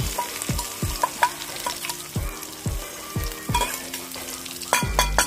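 Chopped garlic and green chillies sizzling in hot oil in an iron kadhai, stirred with a steel ladle that clicks and scrapes against the pan. Low thumps recur about twice a second underneath.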